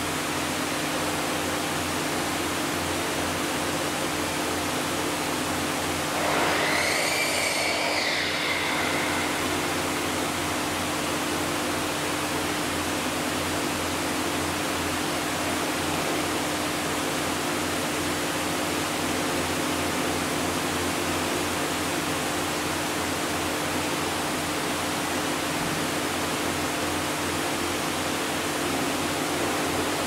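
Steady hiss and hum of aquarium machinery, such as tank filtration pumps and ventilation, with one brief high squeal about six seconds in that rises and then falls away.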